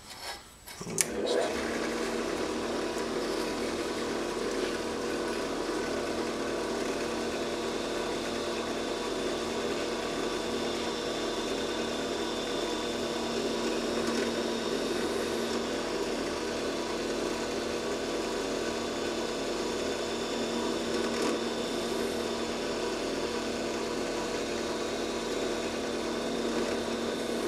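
Benchtop drill press switched on with a click about a second in, its motor then running at a steady speed while a small bit drills holes in a strip of scrap plastic.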